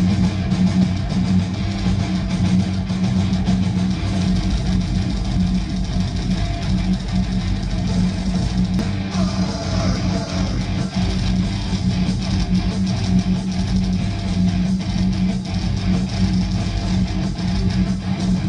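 Heavy metal band playing live at full volume: distorted electric guitars and bass over a steady held low note, dense and continuous through a concert PA.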